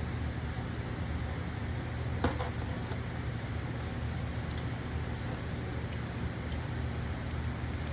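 Steady low background hum, with a few faint clicks as small plastic parts are handled.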